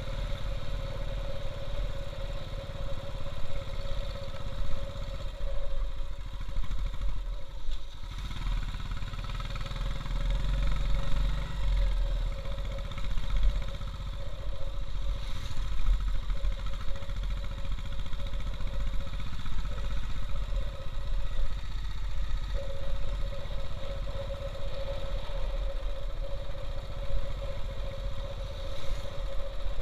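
Royal Enfield Bullet's single-cylinder engine running steadily as the bike is ridden over a rough, stony gravel road, with rattling from the bike on the rough surface.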